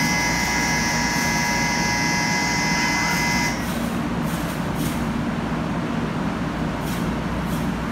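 A steady electronic platform tone with several pitches sounds and cuts off suddenly about three and a half seconds in, over the low steady hum of a 500 series Shinkansen train standing at the platform. A few short high hisses follow in the second half.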